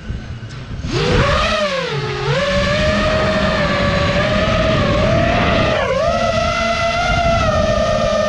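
A custom-built quadcopter's electric motors and propellers, heard from the camera on the quad. They spin up to a loud whine about a second in, dip briefly twice, and otherwise hold a steady whine as the quad flies low and climbs.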